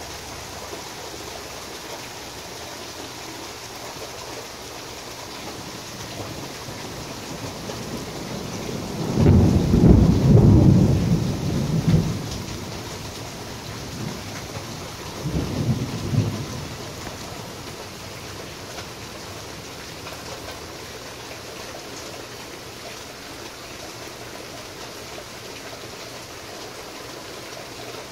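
Steady rain falling, with a peal of thunder rumbling about nine seconds in for a few seconds, then a shorter second rumble a few seconds later as it dies away.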